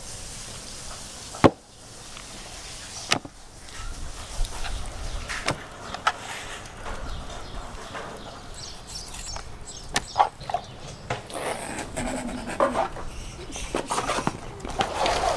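A knife cutting raw beef on a plastic tray, with scattered sharp knocks of the knife and meat against the tray and table, the loudest about a second and a half in.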